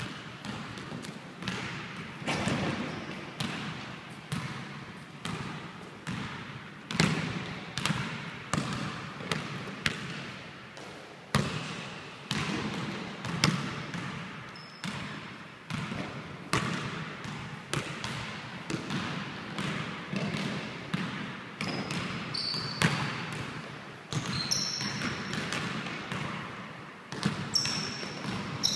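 Basketball bouncing on a hardwood gym floor, sharp thuds at irregular intervals of a second or two, each ringing out in the large hall. Near the end, short high sneaker squeaks on the wood.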